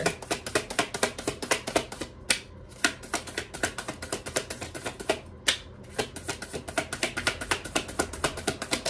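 Deck of tarot cards being shuffled hand to hand, the cards clicking and slapping together in a quick, uneven run of several clicks a second.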